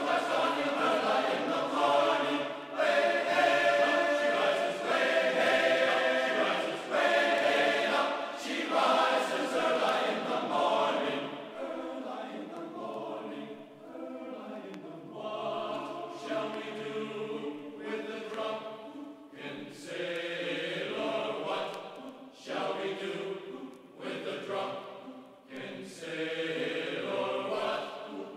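Background music of choir-like sustained singing.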